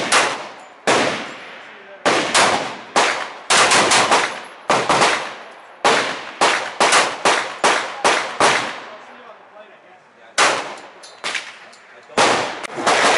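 Rapid pistol gunfire from an STI Range Master 1911-style pistol in .45 ACP. The shots come in quick strings, several a second, each with a short echo, with a pause of about two seconds some two-thirds of the way through.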